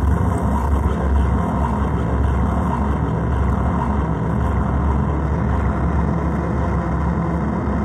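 Synthrotek 4093 Chaos NAND noise pedal's oscillator noise run through a Chase Bliss Habit delay, heard as a dense, steady drone heaviest in the bass, coming out of a speaker cabinet.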